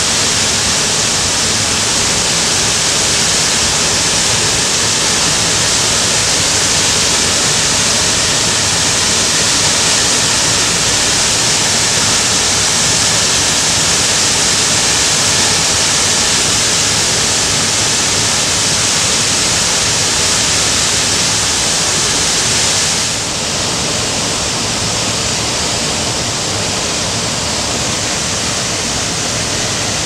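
Chitrakote Falls, a large waterfall, pouring into its plunge pool: a loud, steady rush of falling water that drops slightly in level about three-quarters of the way through.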